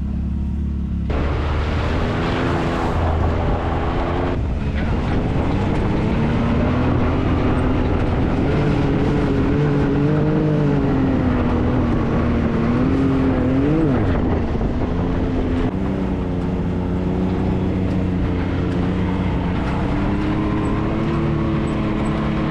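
Can-Am Maverick X3 side-by-side's three-cylinder engine running under way, its pitch rising and falling with the throttle and a quick rev about two-thirds of the way through, over a wash of tyre and wind noise.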